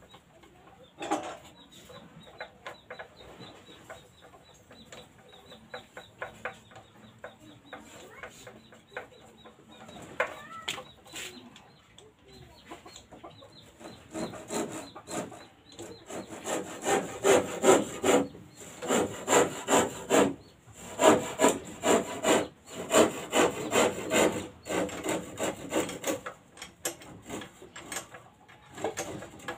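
Rubbing and scraping from hands fitting a Mikuni carburettor and rubber fuel hose onto a small boat engine, with chickens clucking. The quick repeated strokes become louder and busier about halfway through.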